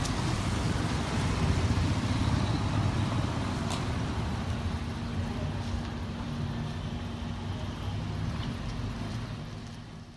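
Steady low rumble of motor vehicles on a street, with a motorcycle riding past in the first couple of seconds; the sound fades out near the end.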